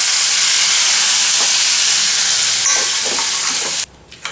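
Chopped tomatoes sizzling hard in hot oil in a cooking pan, a loud steady hiss that cuts off suddenly near the end.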